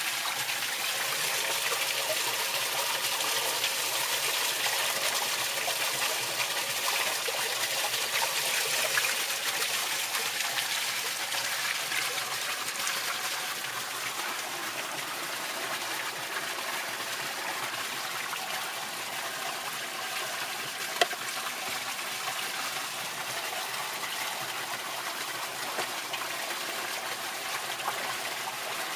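Pond water gushing out of a PVC inlet pipe onto the stainless steel mesh screen of a homemade sieve filter, a steady splashing rush that eases a little partway through. A single sharp click about three quarters of the way through.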